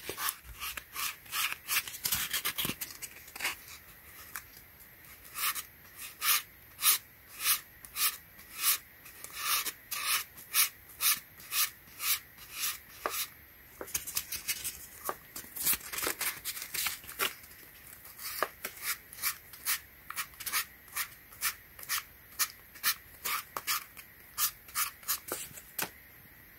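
Sandpaper rubbed back and forth over the scuffed foam of a Yeezy Foam Runner, sanding down the torn, raised foam along the damaged strip. It makes a long run of short scratchy strokes, about two a second, with brief pauses around a third and two-thirds of the way through.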